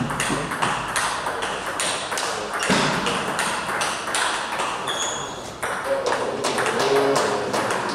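Table tennis rally: the ball clicking sharply off the bats and the table, several hits a second in an irregular run.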